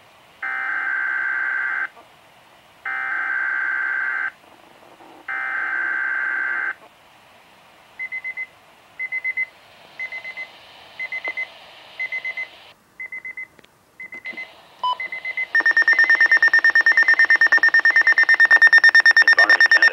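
Weather radio emergency alert signal. It starts with three buzzy electronic data bursts of about a second and a half each, the SAME alert header. Then comes a string of short high beeps, and about three-quarters of the way in, a loud, steady, rapidly pulsing alarm tone that announces a weather warning.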